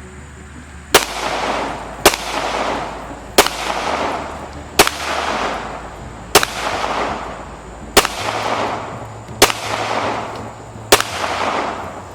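.45 pistol fired eight times at a slow, steady pace, about one shot every one to one and a half seconds. Each shot is followed by a rolling echo.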